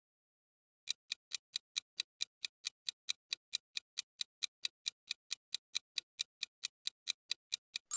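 Clock-style ticking of a quiz countdown timer sound effect, about four and a half even ticks a second, starting about a second in.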